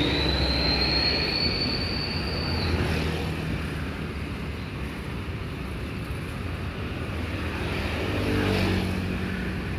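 Road traffic: a steady rumble of passing vehicles, with a thin high whine that stops about three seconds in and a vehicle engine swelling past near the end.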